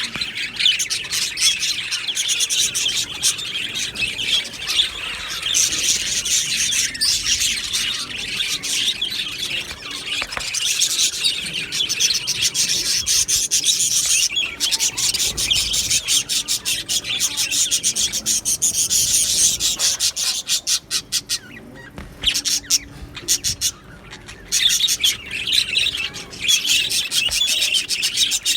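Flock of budgerigars chattering and chirping, many birds calling at once in a dense, continuous warble, with a short quieter stretch about three quarters of the way through.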